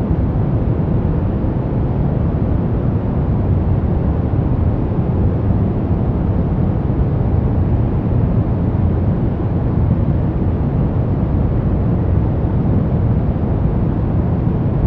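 Steady, unchanging noise from a relaxation 'white noise' track, deep and rumbling rather than hissing: most of it sits in the bass and it fades toward the treble.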